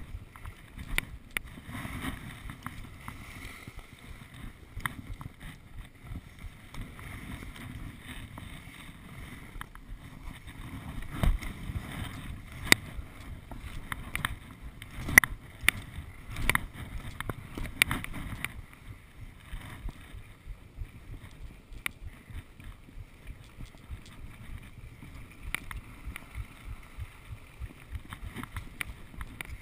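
Skis sliding over packed, tracked snow: a steady scraping rush with wind on the microphone, broken by frequent sharp clicks and knocks.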